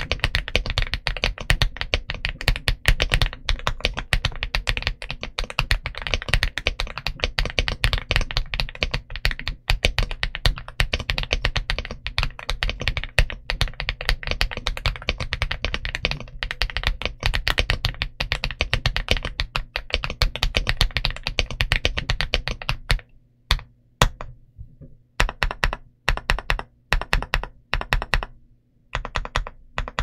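Typing on an Aula F75 Pro mechanical keyboard fitted with Leobog Reaper linear switches. A fast, dense run of keystrokes thins out about three quarters of the way through into slower, separate key presses with short pauses between them.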